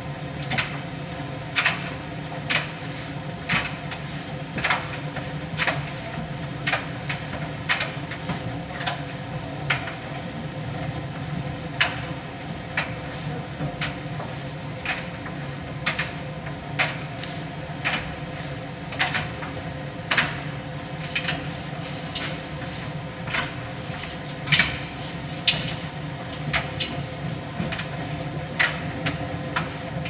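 Miele PT 5136 tumble dryer running mid-cycle: a steady hum of the drum and fan, with a sharp click or knock about once a second.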